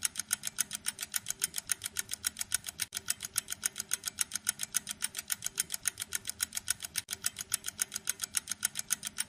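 Fast, even ticking of about eight ticks a second from a countdown timer during a timed round.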